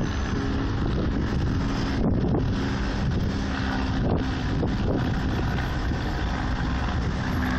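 Steady rumble of road traffic, with wind buffeting the microphone.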